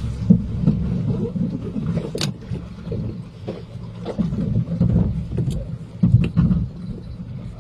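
Fishing boat's engine running with a low rumble, with scattered short knocks and bumps throughout.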